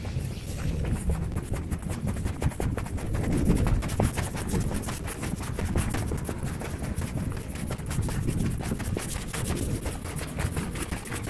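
Footsteps of someone walking, with many small irregular scuffs and crunches, over a low steady rumble.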